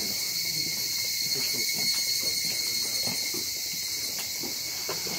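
A steady, high-pitched chorus of insects trilling, with faint voices of people in the background.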